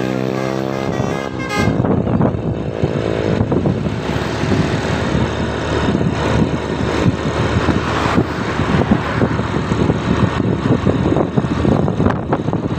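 A bus's multi-tone telolet horn playing a stepping melody, which breaks off about a second and a half in. Loud unpitched vehicle and road noise follows as the bus goes by.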